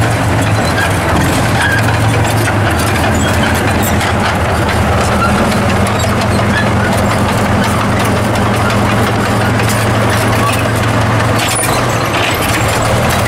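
SU-100 tank destroyer's V-2 V12 diesel engine running steadily as the tank drives slowly on its steel tracks, with scattered clicks and clatter from the running gear. The engine note shifts about a second in.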